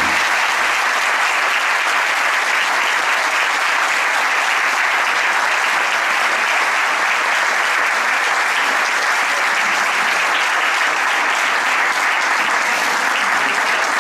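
Audience applauding: a long, steady round of clapping from a roomful of people.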